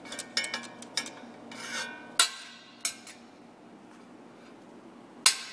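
A steel rod poked and scraped in the stainless drain hole of a manual solder dross separator, as done to clear a blockage. It makes a run of metal clicks and a short scrape in the first two seconds, then single clanks, with the loudest sharp clank near the end.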